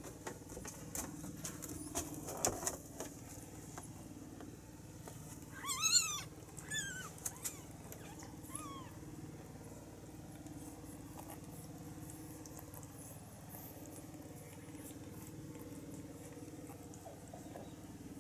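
Newborn kittens mewing: one high, squeaky mew about six seconds in, then two shorter, fainter ones over the next few seconds. A few soft clicks and scratches come before them, over a steady low hum.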